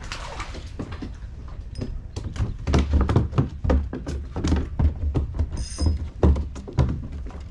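Plastic kayak hull knocking and thudding against a wooden dock as it rocks. The knocks come fast and irregular, growing heavier about two and a half seconds in.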